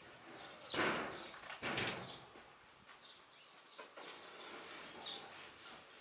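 Small birds chirping in the background, with two short noises of handling or movement about one and two seconds in, which are the loudest sounds.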